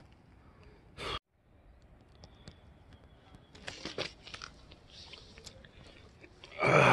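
Scattered crunching and rustling close to the microphone, with a short loud burst about a second in and a much louder rustle near the end.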